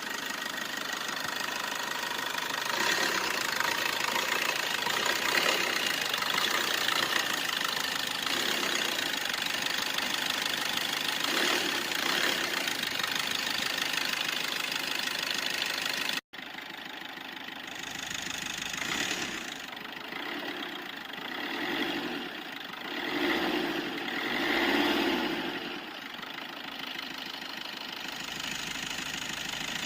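A car engine sound running steadily, cutting out for an instant about sixteen seconds in, then rising and falling in repeated swells like revving.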